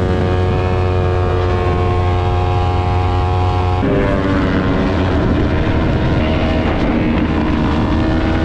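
Yamaha R3's 321 cc parallel-twin engine, breathing through a Jeskap full aftermarket exhaust, running hard at high revs during a fast run. Its note holds a steady pitch, then changes abruptly about four seconds in and shifts again a little later.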